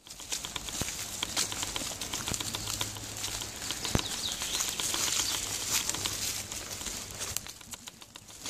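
Walking along a forest dirt track: footsteps and rustling through vegetation, with many small clicks and a sharper click about four seconds in.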